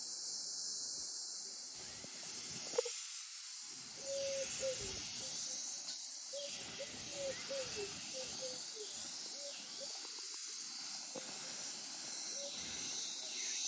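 A 15-inch-gauge steam locomotive approaching slowly with a steady hiss of steam. There is a sharp click about three seconds in, then a run of short squeaks.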